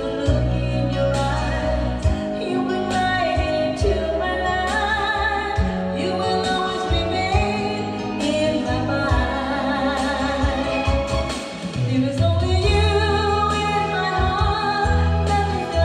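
A song playing: a voice singing with a wavering vibrato over backing music with a steady, heavy bass line.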